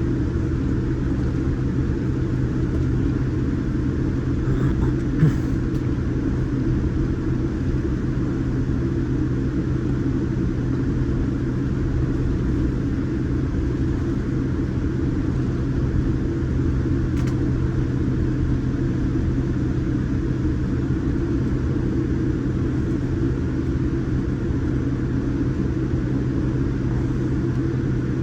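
Boeing 787 Dreamliner's jet engine and airframe noise heard inside the passenger cabin around takeoff: a steady, even rumble with a constant low hum.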